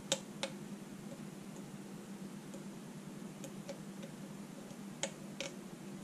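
Small, sharp metallic clicks of a lock pick working the pins of a pin-in-pin challenge lock held under light tension. Two come near the start, a few fainter ticks in the middle and two sharper ones about five seconds in.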